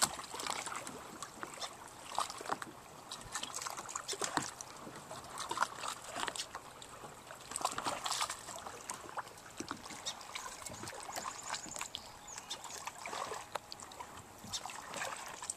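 Footsteps through low, dense brush: twigs and dry leaves crackling and rustling in many small, irregular snaps.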